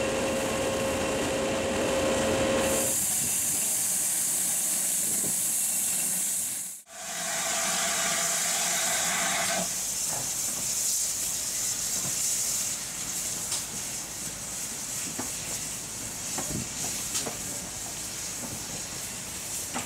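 Steam escaping with a steady hiss from GWR 4-6-0 steam locomotives standing in steam, with a steady tone under it for the first three seconds. The hiss cuts off and starts again about seven seconds in, then thins to a quieter hiss with scattered clicks from about ten seconds in.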